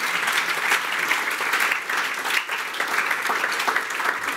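Audience applauding steadily at the end of a poem.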